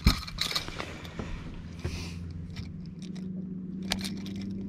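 Sharp clicks and scraping from hands handling a fish and clipping its gripper onto a digital fish scale. A steady low hum comes in about three seconds in.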